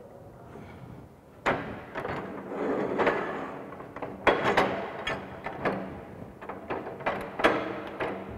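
Irregular metallic knocks and grating from a threaded steel pipe being screwed into a fitting held in a bench pipe vise and tightened, starting about a second and a half in.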